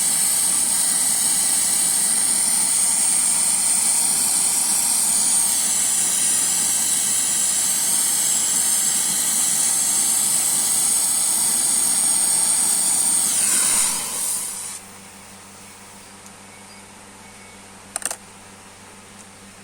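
Pressurised refrigerant gas hissing steadily at a compressor service valve connection, then tailing off and stopping about fourteen seconds in. A sharp click follows a few seconds later.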